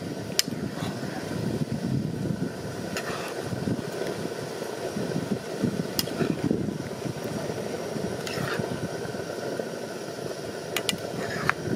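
Steady low rush of a portable gas stove's burner under a pan of cooking curry, with a metal ladle clinking and scraping against the pan several times as the curry is stirred.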